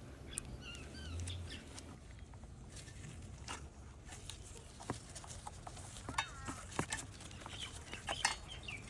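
Birds calling in short, gliding chirps and clucks a few times, with scattered sharp clicks and taps of small plastic parts being handled.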